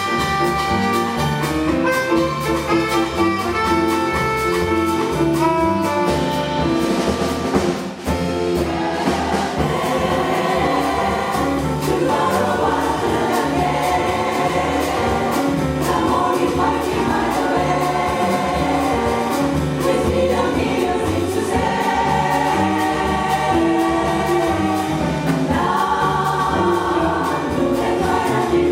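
Jazz chorus singing in harmony, backed by a small band of piano, saxophone, bass and drums.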